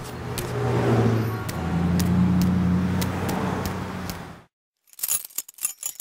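Street ambience of road traffic: a steady engine hum that swells and eases, with light regular ticks over it. It cuts off abruptly about four and a half seconds in, then a run of sharp clicks and taps follows.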